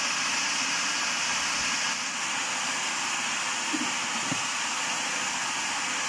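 Electric food processor running steadily, its blade churning a mayonnaise mixture of eggs and soybean oil as it thickens.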